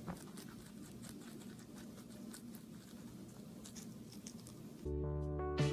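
Rabbits chewing leafy greens: faint, quick crunching clicks. About five seconds in, louder guitar music starts.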